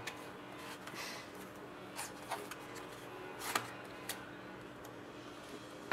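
Faint rustling and a few light ticks of hockey cards being slid out of a small box by hand, over a low steady hum.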